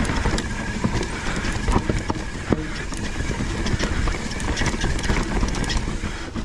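Mountain bike rolling down a rough trail: a steady rush of tyre and wind noise with rapid, irregular clicks and knocks as the bike rattles over rough ground.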